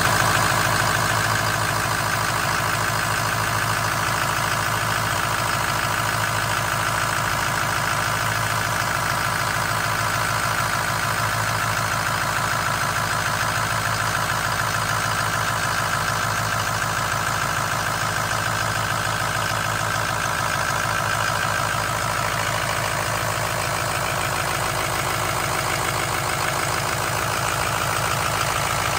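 Ford 6.0 L Power Stroke V8 turbo-diesel of a 2005 F-450 idling steadily, heard close up over the open engine bay.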